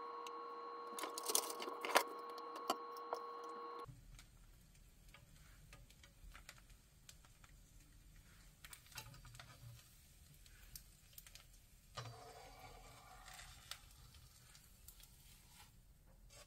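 Crepe batter cooking in a nonstick frying pan on low heat: faint, scattered crackling and ticking. A steady hum with small ticks runs for the first few seconds, a spatula scrapes at the crepe's edge about three-quarters of the way through, and a sharp knock comes right at the end as the crepe is lifted.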